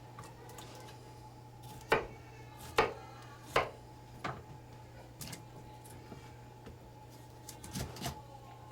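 Four sharp knocks of hard objects striking, each less than a second apart, then a few softer knocks near the end, over a steady low electrical hum.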